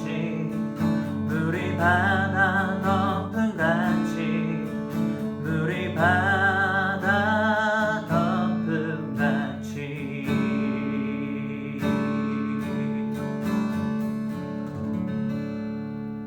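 Acoustic guitar strumming the closing chords of a worship song, with a voice singing held, wavering notes over it for the first half. The voice drops out about eight seconds in, and the guitar chords ring on and slowly fade.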